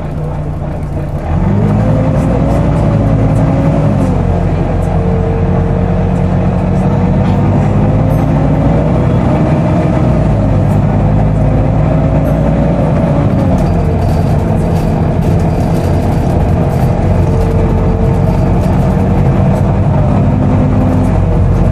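Volvo B9TL double-decker bus's engine pulling under load, heard inside the bus, with a loud hoover-like cooling-fan whine running over it. About a second in it gets louder and rises in pitch, then drops back around four seconds in and again near fourteen seconds.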